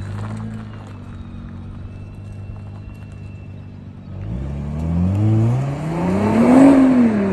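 Nissan GT-R's twin-turbo V6 idling steadily, then revving as the car accelerates away; the engine pitch climbs for about two seconds and drops back just before the end.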